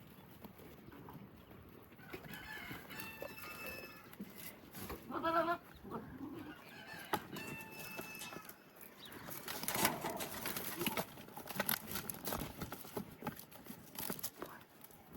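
Farm animals calling: two drawn-out calls, then a louder wavering call about five seconds in, followed by scattered clicking and rustling.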